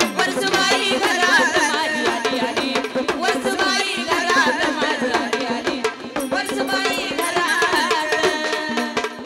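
Live Marathi jagran gondhal devotional folk music: drums keep a fast, dense rhythm under a wavering melody line.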